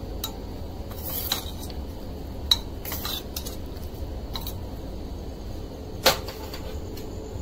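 Steel ladle clinking against a stainless steel pot while stirring boiled toor dal. The clinks are irregular, with two sharper knocks about two and a half and six seconds in.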